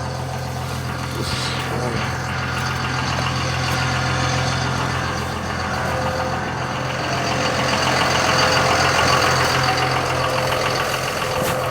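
Truck engine running steadily at idle, a continuous low drone.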